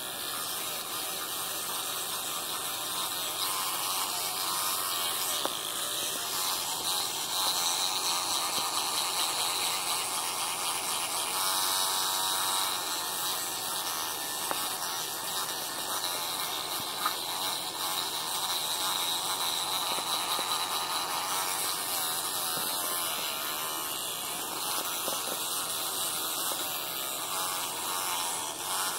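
Electric toothbrush running with a steady buzz while a capuchin monkey chews on the brush head, the texture of the buzz shifting now and then.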